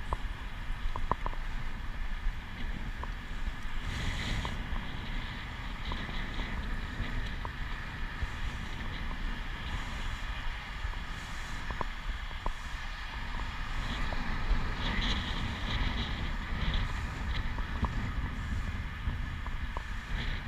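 Wind buffeting the microphone of a camera riding along a paved bike path, over a steady low rumble of travel, with occasional faint ticks.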